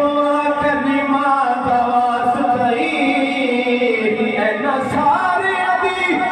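Male voices singing a Punjabi naat in long, held notes that slide slowly between pitches, a lead voice with other voices singing along behind it.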